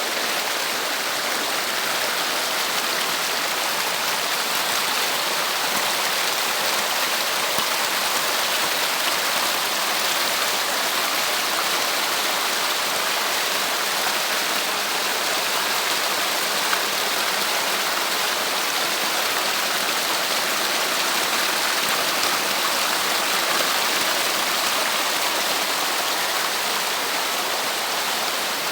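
Water cascading over rocks in a small waterfall, a steady even rush.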